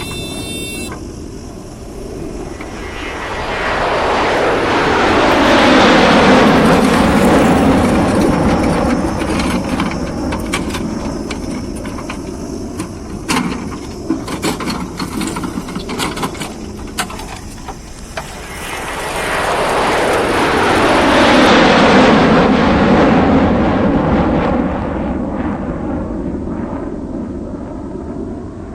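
A heavy diesel vehicle driving past close by twice, its engine and rumble swelling up and fading away each time, with rattling clicks in the lull between the two passes.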